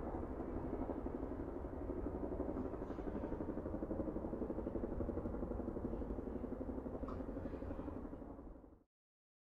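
Steady low rumble of city traffic, faded out to silence shortly before the end.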